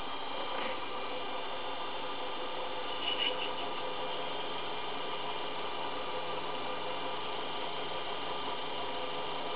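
Einhell BT-ML 300 mini lathe running steadily, its motor and drive giving a steady whine, while a drill bit in the tailstock chuck bores into a spinning brass rod. A brief higher-pitched screech about three seconds in.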